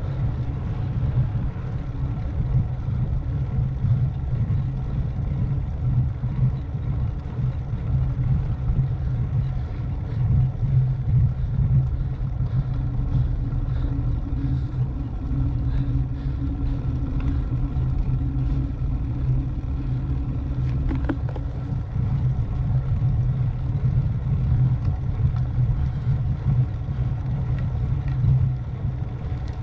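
Steady wind rush and road rumble on a cyclist's camera microphone while riding on the road, loudest in the low range and fluctuating without let-up.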